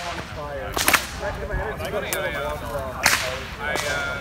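Bullwhips cracking: a sharp crack about a second in and another about three seconds in, with fainter cracks between them, over people talking in the background.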